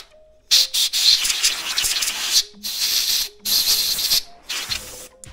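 Compressed-air blow gun hissing in a series of blasts, the longest about a second and a half, starting about half a second in. The blasts clear the metal chips out of a freshly tapped exhaust-bolt hole in a Briggs LO206 engine's cylinder head.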